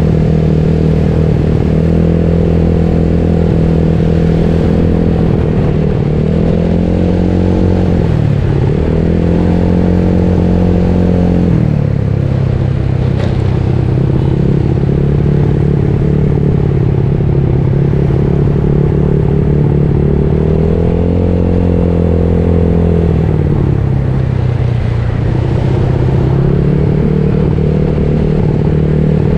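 Yamaha Mio Soul scooter's single-cylinder engine, built with a 58 mm piston and stock valves, running under way. The engine note rises and falls several times as the throttle is opened and eased, with a long steady stretch in the middle.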